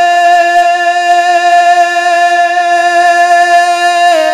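A man singing a naat into a microphone, holding one long steady high note that bends to a new pitch near the end.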